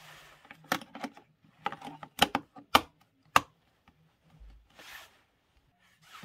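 Plastic clicks and rattles as a Dymo LetraTag label cassette is pressed into the label maker's tape compartment: a string of about six sharp clicks in the first three and a half seconds, with light handling rustle between.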